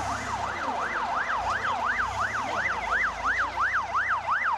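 Emergency vehicle siren sounding a fast yelp, its pitch sweeping up and down about three to four times a second and growing slightly louder.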